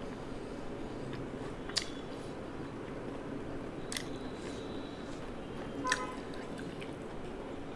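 A person eating: quiet chewing over a steady background hiss, with three sharp clicks about two seconds apart, the last two ringing briefly.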